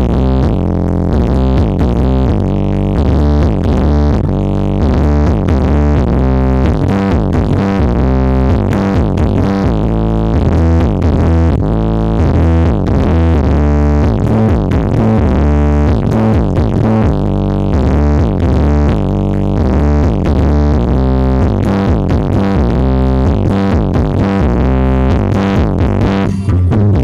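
Electronic DJ music with a synthesizer melody and a heavy, steadily pulsing bass, played loud through a large sound system with a stack of subwoofers.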